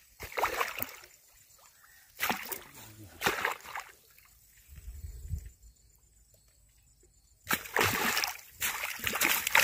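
Hooked fish thrashing and splashing in shallow, weedy water at the bank as it is landed: a few short splashes in the first few seconds, a quiet gap, then a longer run of splashing near the end.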